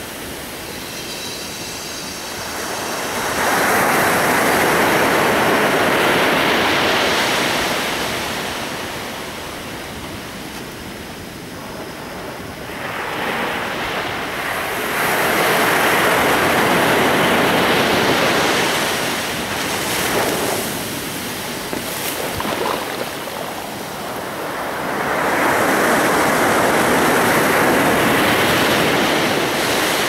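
Atlantic surf breaking and washing up a dark sand beach, the wash swelling three times, about ten seconds apart, and easing off in between.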